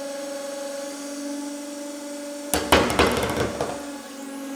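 Hydraulic press's pump motor humming steadily under load as the ram squeezes a roll of monofilament fishing line. About two and a half seconds in, a burst of sharp crackling and snapping lasts about a second as the roll gives under the pressure without exploding.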